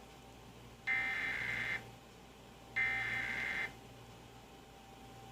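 Emergency Alert System digital data bursts: buzzy, high-pitched warbling tones about a second long, repeating with roughly a second's gap between them. Two full bursts are heard, plus the tail of an earlier one at the very start.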